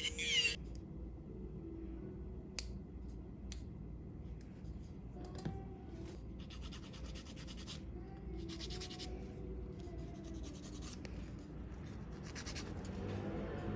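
Background music stops just after the start. Then a hand-held nail tool scrapes and rubs against a toenail in short runs of quick strokes, with one sharp click a couple of seconds in.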